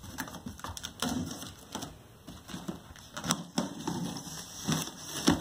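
Pocket knife slitting packing tape along the seam of a cardboard box, with irregular scrapes, clicks and taps of the blade and cardboard.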